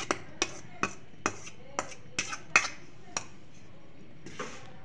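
A metal spoon scraping and tapping against a steel plate, pushing chopped green herbs and onion off it: about eight sharp clinks in the first three seconds, then a soft scrape near the end.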